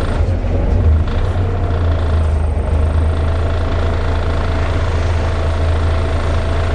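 Volvo B7TL double-decker bus's diesel engine running, a steady low drone with a constant higher whine over it.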